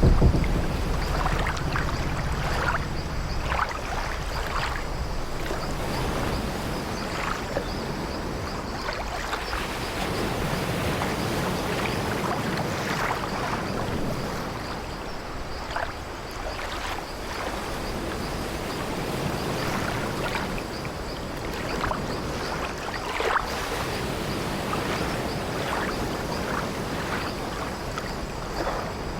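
Sea waves washing steadily against an old wooden sailing ship, with frequent short creaks of its timber hull and deck scattered throughout. A low rumble eases off in the first few seconds.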